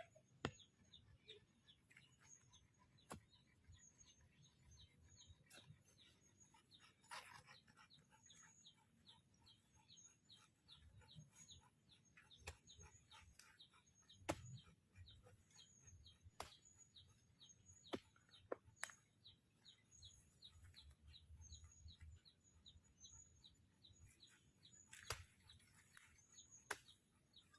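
Faint bird chirping, short high chirps repeated about three a second, with scattered sharp clicks.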